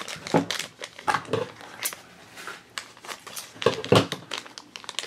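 Black foil pouch being crinkled and torn open by hand to get at an enamel trading pin, a run of irregular crackles and rustles.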